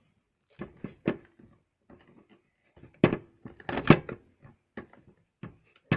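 Plastic toy packaging being handled by hand: irregular clicks, taps and crinkles, busiest and loudest around three to four seconds in.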